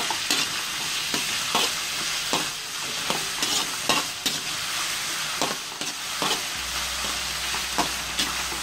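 Minced garlic sizzling in hot oil in a metal wok as a metal spatula stirs it, the spatula scraping and tapping against the pan about once or twice a second.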